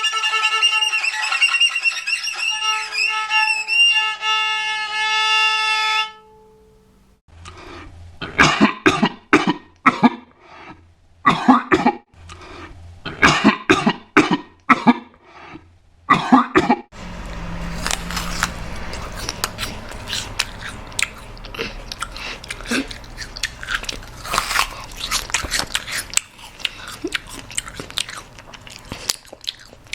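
A violin played badly with scratchy, wavering notes, stopping about six seconds in. After a short pause a person coughs wetly in repeated bursts for about ten seconds. Then someone bites and chews an apple with dense, crisp crunching.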